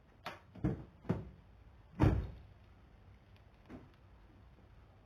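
Acura RSX car door clunks: a few short knocks, then a heavier thump about two seconds in and a lighter knock near the end.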